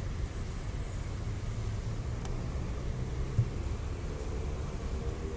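Harley-Davidson Ultra Limited's V-twin engine idling with a steady low rumble, and a single short thump about three and a half seconds in.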